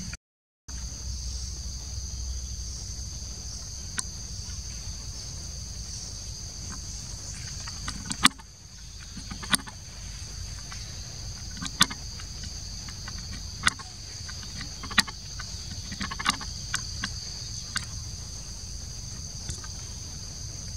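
Insects buzzing in a steady, high two-tone drone, with about eight sharp clicks and snaps scattered through it. The sound cuts out for about half a second just after the start.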